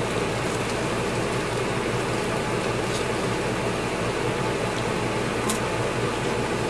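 Steady fan-like hum and hiss, with a few faint crisp clicks as a wafer stick is bitten and chewed.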